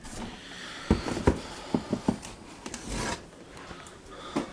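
Cardboard packaging being handled: rubbing and scraping of cardboard with a few short knocks, as boxed models are pulled out of a shipping box.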